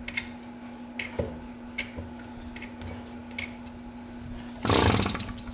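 Rope being wound onto the flywheel of a homemade engine converted from a refrigeration compressor, with small clicks and rubbing. Near the end the rope is pulled and the unfired engine spins over briefly on compression, a short loud run of rapid pulses.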